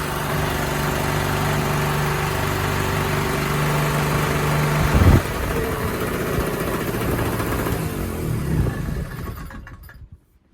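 Kinzo 30L801 two-stroke generator engine running steadily after a successful start, with a brief loud knock about five seconds in. Near the end its pitch falls and it runs down to a stop.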